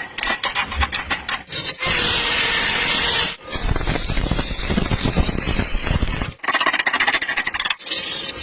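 Arc welding on a V-groove butt joint: a steady crackling hiss of the arc, in several short stretches separated by abrupt cuts. The first couple of seconds are rougher, made up of rapid scratchy strokes.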